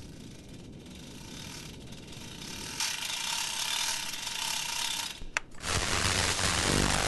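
Portable emergency world band radio being worked by hand: a mechanical ratcheting, grinding sound builds from about three seconds in, a sharp click comes at about five and a half seconds, and then the radio starts hissing with static over a low hum.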